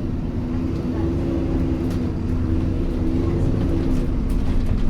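Alexander Dennis Enviro400 Trident double-decker bus heard from on board while running: a steady low rumble under a droning, slightly wavering whine, the vacuum-cleaner-like sound that earns these buses the nickname "Hoover". Faint clicks and rattles come through here and there.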